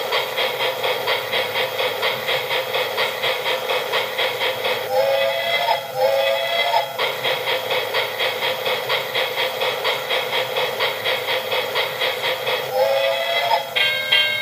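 Recorded steam-locomotive sound played by an alarm clock's speaker: a steady chuffing rhythm of a train running on rails, with two whistle blasts in quick succession about five seconds in and another near the end. A ringing bell sound starts just before the end.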